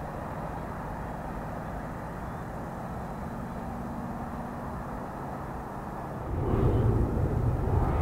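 Distant jet engines of a four-engined Boeing 747-300 freighter on the runway, a steady low rumble that grows abruptly louder about six seconds in.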